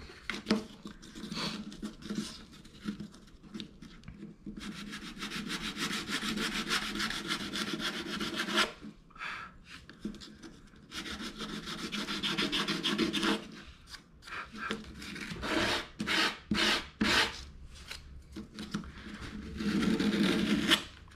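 Small block of light wood rubbed back and forth by hand on a loose orbital-sander sanding disc, the sandpaper rasping in runs of quick strokes with short pauses between.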